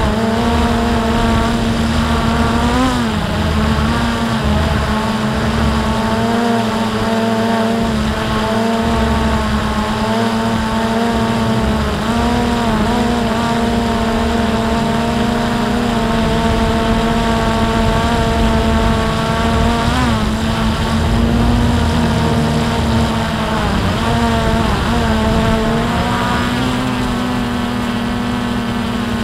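A drone's motors and propellers heard from its onboard camera: a steady, loud whine that swoops briefly in pitch a few times as the throttle changes, over a low, uneven rumble.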